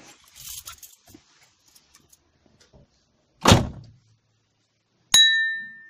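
Handling sounds in a car interior: soft rustling, then one heavy thump about three and a half seconds in, and near the end a sharp click with a short, bright ringing ding.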